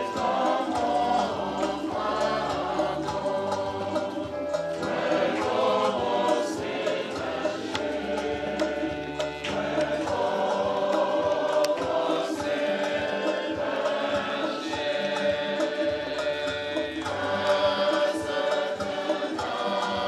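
Choir singing a hymn in sustained, many-voiced notes, with a pulsing low accompaniment underneath.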